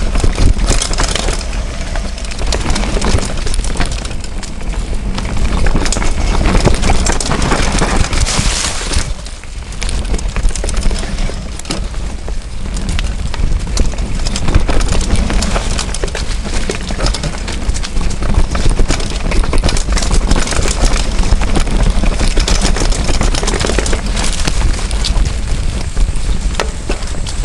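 Mountain bike rattling and jolting steadily over a dirt and grass trail: knobby tyre noise, dense irregular clicks and knocks from the bike, and a continuous low rumble of wind on the bike-mounted camera's microphone.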